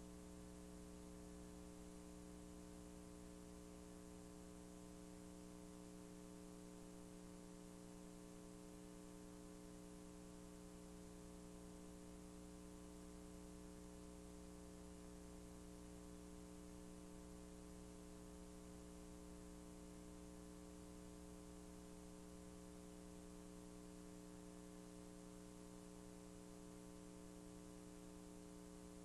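Near silence: a steady low electrical hum with faint hiss, unchanging throughout.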